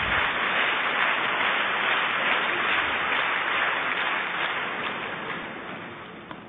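Arena crowd clapping while a line-call challenge is reviewed on the big screen, steady at first and then dying away near the end as the ruling comes up.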